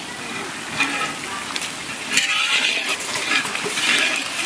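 Sliced onions sizzling in hot mustard oil in a cooking pan as ginger-garlic paste goes in and a spatula stirs them. The sizzle swells twice in the second half.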